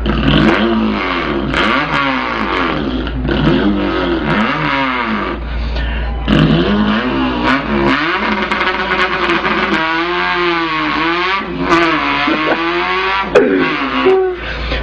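A man imitating an import car engine with his voice: engine sounds that climb in pitch and drop back again and again, like revving up through the gears.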